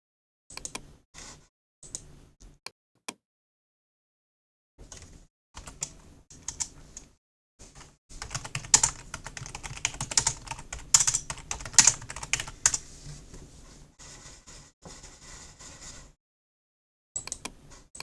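Logitech computer keyboard being typed on, keys clicking. A few short bursts come first, then fast continuous typing for about eight seconds before it stops, with one more short burst near the end.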